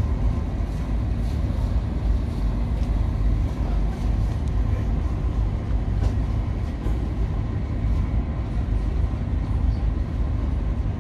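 Steady low rumble of the car carrier MV Serasi V's engine as the ship gets under way.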